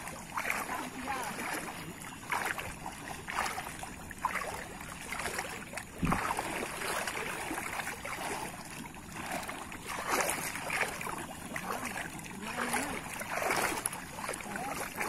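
Water sloshing and swishing around the legs of people wading thigh-deep, surging irregularly about once a second with their strides, with one sharp knock about six seconds in.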